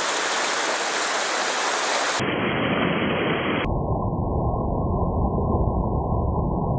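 Fast mountain stream rushing over rocks in white-water rapids, a steady loud noise. About two seconds in it turns duller, and from about halfway it is duller still, with a heavy low rumble.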